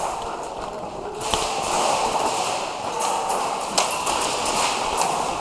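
A few isolated sharp snaps of airsoft guns firing single shots, seconds apart, over a steady rustling noise of movement.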